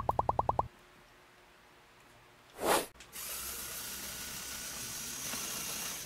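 A fast run of electronic beeps cuts off under a second in, and a short loud whoosh comes about two and a half seconds in. Then a Lego Technic wheeled vehicle's electric motor and plastic gear train whir steadily with a light clicking as it drives along.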